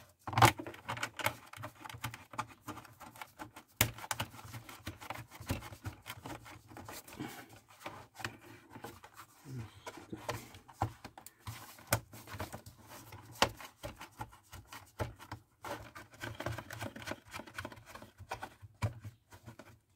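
Irregular small clicks, taps and scrapes of hands handling a plastic welding helmet's shell and its auto-darkening filter frame while screws are being fitted.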